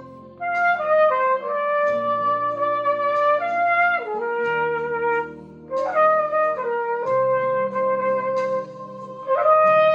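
Trumpet playing a slow melody of long held notes, with short breaks between phrases.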